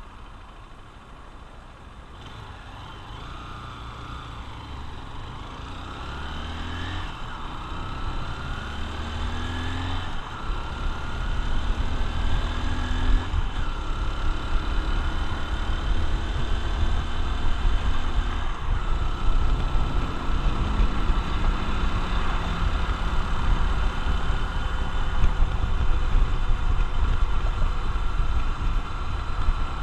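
Honda XR150L's single-cylinder four-stroke engine pulling away and accelerating, its pitch climbing and dropping back at each upshift about four times, then holding steady at cruising speed. Wind rumble on the microphone grows as speed builds.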